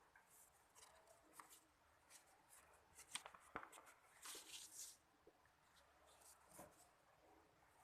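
Sheet of notebook paper being folded and creased by hand: faint rustles, crinkles and short scrapes, with a longer rustle about four and a half seconds in.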